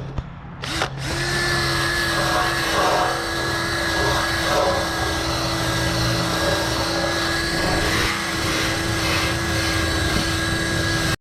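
Handheld electric rotary power tool starting about a second in and then running at a steady speed, a steady whine over a rough grinding noise, as it strips rust from bare steel.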